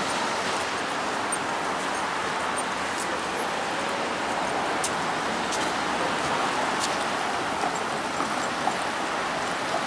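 Steady city street traffic noise: cars passing on a wide road, an even hiss of tyres and engines, with a few faint clicks.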